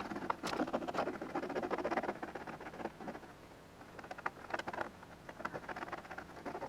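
Small hand tool cutting through plastic drainage pipe: an irregular, scratchy rasping and crackling that comes and goes, finishing a cut.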